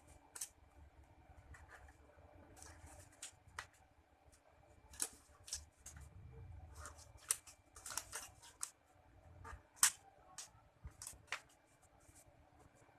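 Faint, irregular rustling and crinkling with scattered sharp clicks, the handling noise of disposable examination gloves being pulled on.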